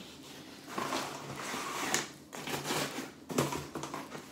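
Rummaging by hand in a cardboard box of beer cans: rustling and scraping, with a sharp knock about three and a half seconds in as a can is handled.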